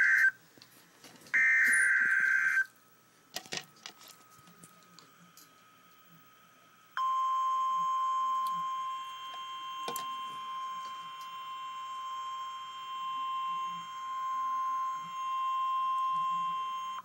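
Emergency Alert System signal: a burst of warbling digital header data about a second in, a few seconds of near quiet, then a single steady alert tone just above 1 kHz held for about ten seconds, the NOAA Weather Radio 1050 Hz warning alarm that precedes a severe thunderstorm warning. The tone wavers in loudness and cuts off sharply near the end.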